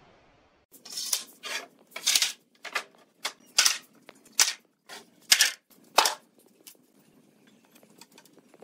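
A quick series of about a dozen sharp knocks, roughly two a second, that stops after about six seconds and leaves only faint light tapping.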